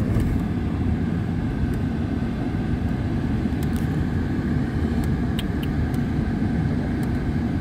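Steady engine and road noise of a vehicle driving along at an even pace, heard from on board.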